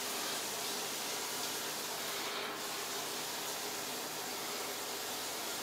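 Steady low hiss with no distinct event: background noise.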